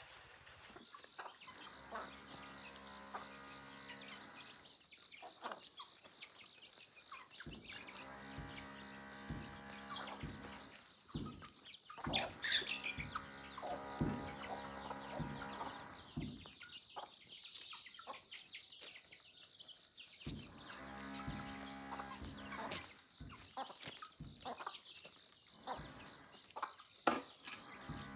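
Outdoor ambience: insects droning in a steady high band and birds calling, with scattered sharp clicks and knocks.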